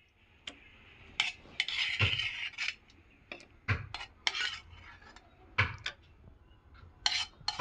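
Metal spoon scraping and clinking against steel cookware as cooked tomato is spooned into a stainless-steel mixer-grinder jar: a string of irregular scrapes and sharp clinks.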